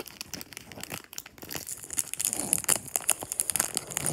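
Foil booster-pack wrapper crinkling and crackling as it is torn open by hand, getting louder about halfway through.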